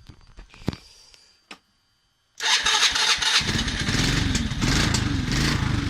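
Motorcycle engine being started: a few faint clicks, then about two and a half seconds in the engine cranks and catches, and runs on with a steady low beat.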